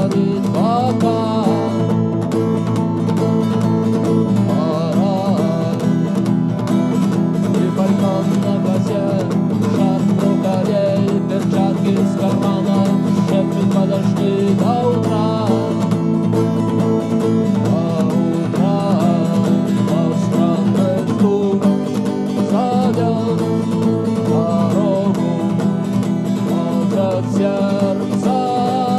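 Music: an instrumental guitar passage from a cover song, a melody line over steady accompaniment.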